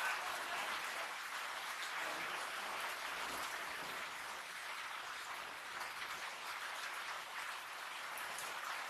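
Steady rain falling on wet ground and puddles, an even hiss with no other distinct sound.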